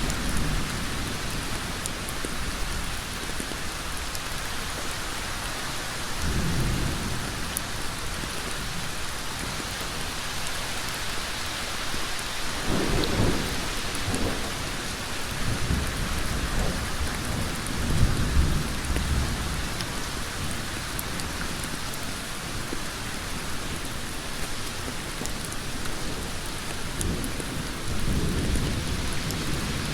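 Heavy rain falling steadily on a road, an even hiss throughout. Low rumbles swell and fade several times: about six seconds in, through the middle, and near the end.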